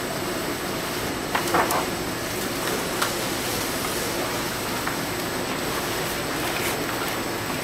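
Rosenthal Trivision trimmer running, its conveyor belt drive giving a steady machine hum. A few light clicks and knocks come through it: a small cluster about one and a half seconds in, and single ones near three and five seconds.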